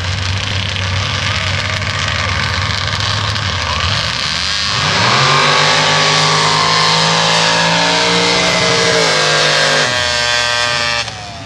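Ford pickup sand drag truck's engine idling at the starting line, then launching at full throttle about five seconds in: the revs climb sharply and hold high for about five seconds, then fall away as the driver lifts off near the end of the run.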